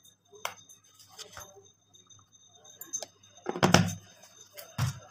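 A spoon clicking and tapping against a brass plate as gram flour is spooned onto marinated chicken, then two louder knocks, about three and a half and five seconds in.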